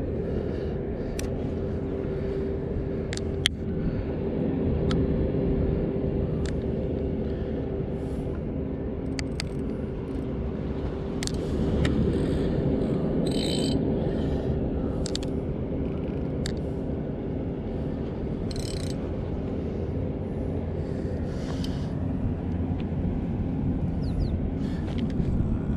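A steady low mechanical drone with a constant hum runs throughout, with scattered small clicks and taps over it.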